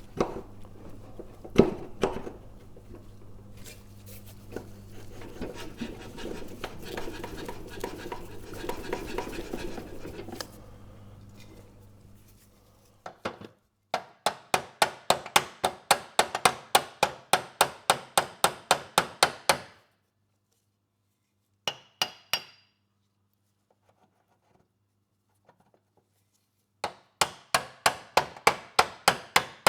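Metal parts being handled and knocked, then runs of rapid hammer blows on steel, about five a second, each ringing briefly. The blows drive a damaged, stuck mower blade adapter off the engine crankshaft.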